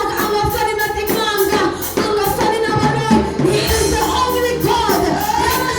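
Gospel praise-and-worship singing over a steady beat of about four strokes a second.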